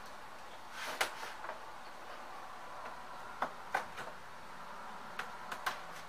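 A small blade cutting through the sealing stickers and tape on a cardboard box. A scraping rasp comes about a second in, followed by a few sharp clicks and taps on the cardboard.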